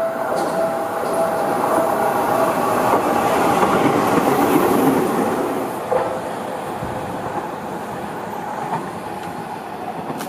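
Seibu 6000 series electric commuter train passing close by, its wheels clattering over the rail joints. The noise builds to its loudest about four seconds in, then eases off as the train runs away.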